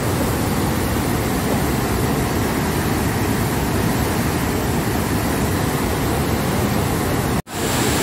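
Floodwater rushing out of a dam's open spillway gates and churning downstream, a loud steady roar. The sound cuts out for an instant near the end.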